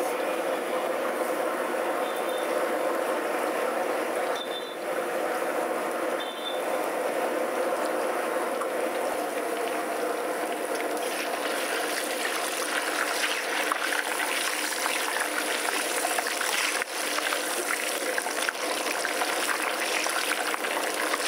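Battered fish strips deep-frying in hot oil in an iron kadai, a steady sizzle and bubbling that grows louder and denser about halfway through.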